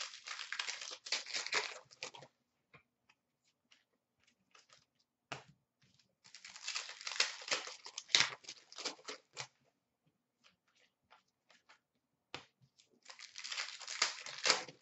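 Foil wrappers of 2013-14 Panini Contenders hockey card packs being torn open and crinkled, in three bursts of two to three seconds each, with scattered light clicks between them.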